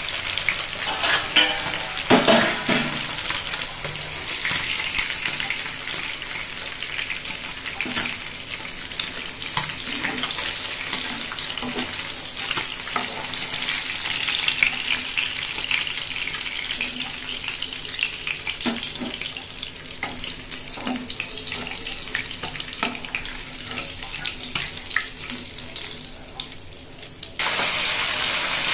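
Small parshe fish (mullet) frying in hot oil in a nonstick pan: a steady sizzle with scattered clicks and scrapes as a silicone spatula lifts the fish out. About 27 seconds in, the sizzling suddenly gets louder.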